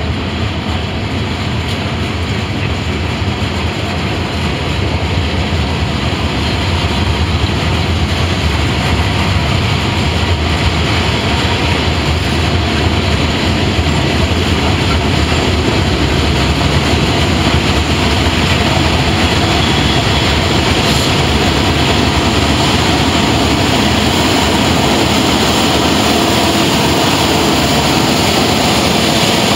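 Norfolk Southern freight train's open-top cars rolling past: a steady rumble and rattle of steel wheels on rail. Near the end, the diesel engines of mid-train distributed-power locomotives come into the mix.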